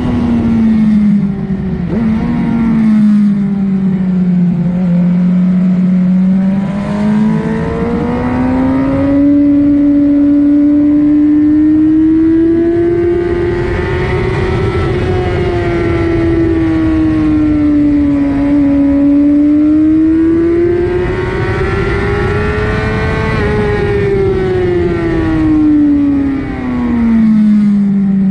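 2007 Suzuki GSX-R750's inline-four engine under way at track speed, heard from on board. Its pitch climbs and falls over several seconds at a time as the throttle is worked, with brief dips in the first few seconds and a fall near the end.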